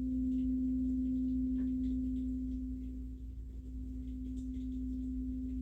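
A singing bowl sounding one steady, pure-sounding tone that slowly fades a little, over a low steady hum.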